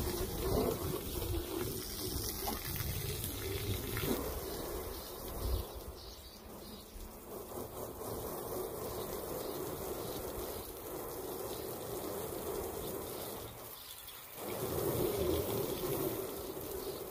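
Garden hose spray nozzle spraying water onto a pickup truck's body panels, rinsing off the soap after the wash. The spray hisses and splashes steadily, with a brief break about fourteen seconds in.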